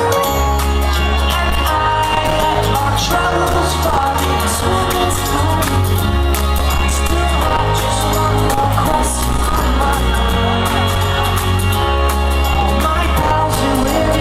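Live electropop band performing a song, heard from the audience: long held bass notes changing every second or two under keyboards and a singing voice, loud and full throughout.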